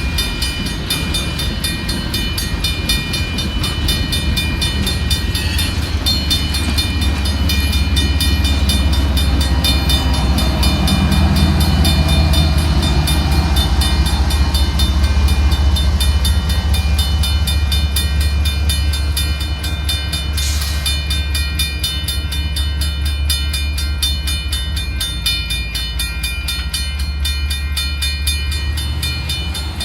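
Union Pacific coal train's cars rolling past on the rails: a steady heavy low rumble with thin, high, steady ringing tones above it, loudest through the middle. A brief hiss-like burst comes about two thirds of the way through.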